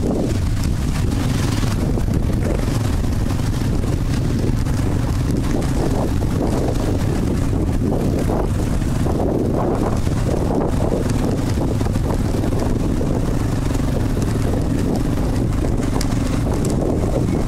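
Off-road vehicle's engine running at a steady pace while riding a trail, with wind noise on the microphone.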